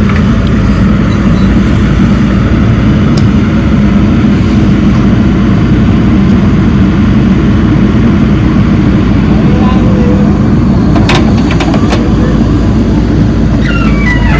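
Heavy diesel engine of the machinery loading soil, running steadily. A few short knocks come about eleven seconds in.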